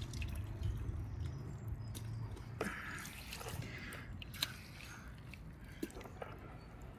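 A hand moving and sifting through water and hornwort pond weed in a plastic bucket: soft splashes, drips and small clicks, over a low hum that stops about two seconds in.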